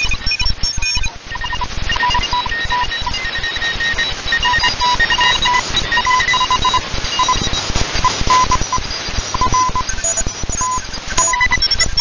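Shortwave radio receiver tuned to 14.015 MHz, in the Morse code part of the 20-metre amateur band: beeps at several different pitches keyed on and off in short and longer lengths, over a steady hiss of static.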